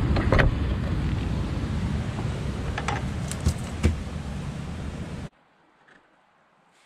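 Wind buffeting the microphone with a loud, low rumble, broken by a few sharp knocks and clicks. About five seconds in it cuts off suddenly to near silence.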